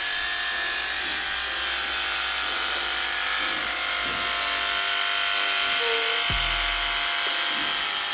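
Electric horse clippers running steadily while clipping a horse's coat, a constant buzz, with a brief low bump about six seconds in.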